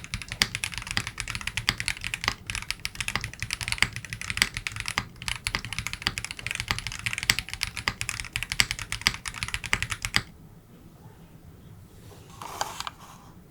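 Fast, continuous typing on a Qwertykey QK60 60% mechanical keyboard with JWICK Gingermilk switches, an aluminium plate and GMK Dandy keycaps, the keystrokes clacking densely. The typing stops suddenly about ten seconds in, followed by one brief soft sound near the end.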